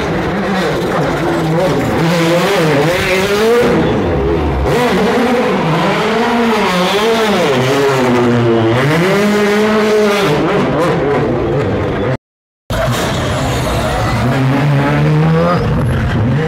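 World Rally Car engines revving hard, the pitch climbing and dropping again and again as the cars accelerate and slow through the stage. The sound cuts out briefly about twelve seconds in.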